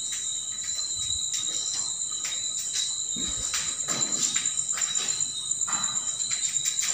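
Insects, likely crickets, trilling in two steady high-pitched tones, with scattered faint clicks and rustles of someone moving about.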